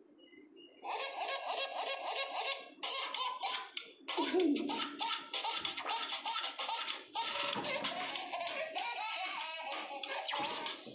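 A comic tune with laughter in it, played through a phone's speaker, starting about a second in.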